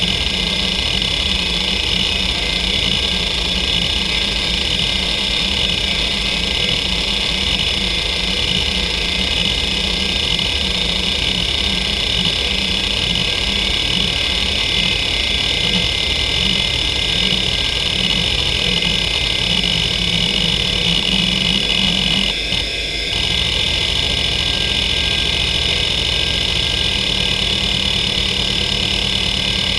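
Western Digital Caviar 2340 340 MB hard drive running a head-seek test: a steady high spindle whine with the head actuator chattering unevenly as it sweeps back and forth across the platters. About three-quarters of the way through the seeking stops for a moment, then resumes in a steadier, more even pattern.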